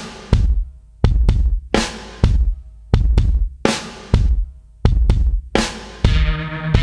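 Background music with a heavy, steady drum beat, kick and snare, and sustained bass notes coming in near the end.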